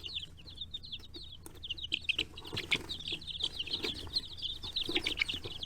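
A brood of speckled Sussex chicks peeping: many short, high peeps overlapping in a rapid, continuous stream.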